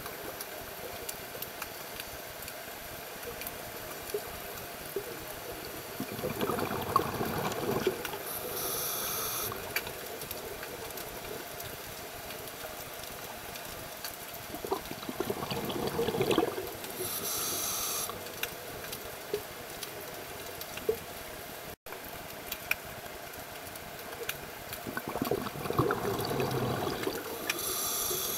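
Scuba diver breathing through a regulator underwater: three rounds of bubbling exhalation about ten seconds apart, each followed by a short hiss of inhalation.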